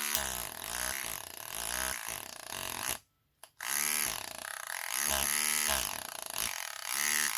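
Small electric motor of an opened-up NUK electric breast pump, driving its diaphragm, running with a buzzing whine whose pitch dips and rises several times as its speed changes. It cuts out about three seconds in and starts again about half a second later.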